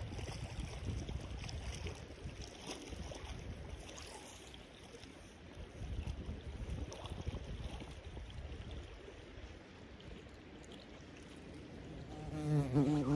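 Steady rush of the river with wind buffeting the microphone in irregular gusts. Near the end a fly starts buzzing close to the microphone, a wavering drone that grows louder.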